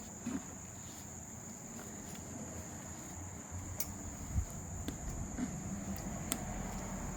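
A faint, steady high-pitched trill, with a few scattered faint clicks and a low hum beneath.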